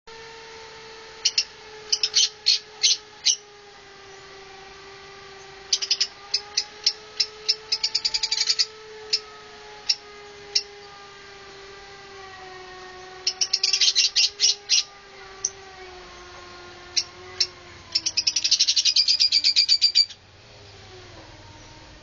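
Lovebird (Agapornis) giving loud, sharp, shrill chirps in quick runs of several notes, with pauses between the runs. The last run, near the end, is a fast rattling series. Underneath is a steady low hum that slowly sinks in pitch.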